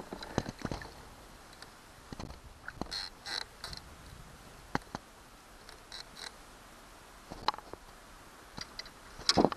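Sparse light knocks and clicks from handling gear on a plastic kayak, with small water splashes as a shad is lowered into the river and released by hand. A louder burst of scraping starts near the end.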